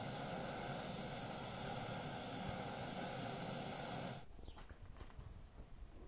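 Water at a rolling boil in a pot on a portable gas canister burner, with the burner's steady hiss. It cuts off suddenly about four seconds in, leaving a much quieter outdoor background.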